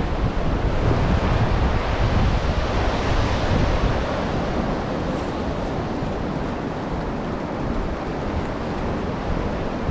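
Ocean surf washing onto a beach, swelling about a second in and easing off over the next few seconds, with wind rumbling on the microphone.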